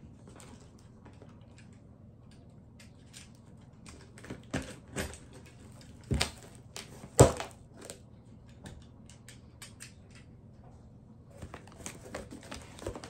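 A cardboard shipping box and its packing being handled: scattered light clicks and crinkles, with a few sharper knocks, the loudest a little past the middle.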